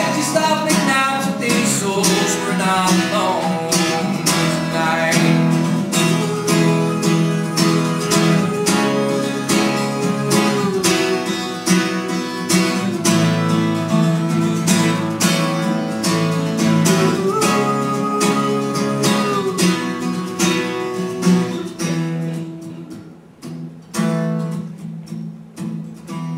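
Acoustic guitar played solo, strummed in a steady rhythm with melody notes ringing over the chords. About 22 seconds in the playing thins out and gets quieter.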